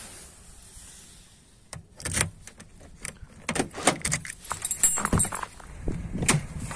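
Footsteps on snow, then a key ring jangling and a key working the door lock of an Opel Zafira, with a run of clicks and rattles. The driver's door latches open with a louder knock near the end.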